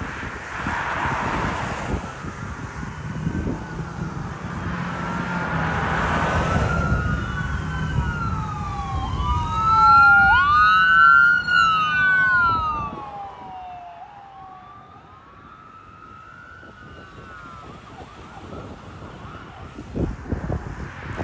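Ambulance siren wailing, its pitch sweeping up and down over and over, louder as the ambulance comes past about ten seconds in and then fading away. Passing traffic and a low engine hum lie underneath.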